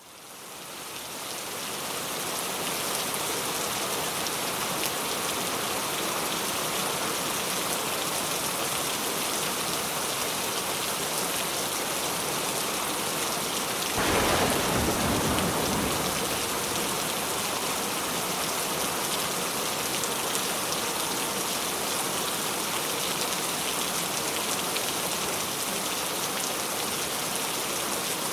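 Steady heavy rain falling, fading in over the first couple of seconds. About halfway through, a louder low rumble swells for two or three seconds and dies away.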